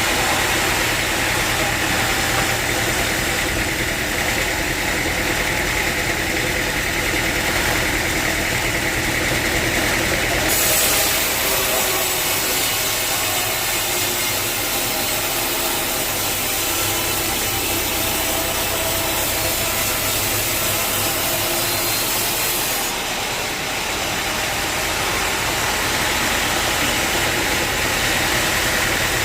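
Sawmill machinery engine running steadily. From about ten seconds in, a loud hiss joins for roughly twelve seconds while the low hum drops, then the steady running returns.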